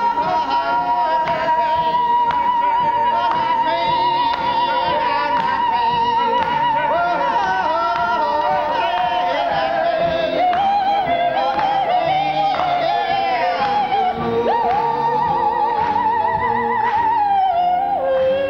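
A singer holding a long high note with vibrato over musical accompaniment, then running through a moving melody and holding a second long note near the end.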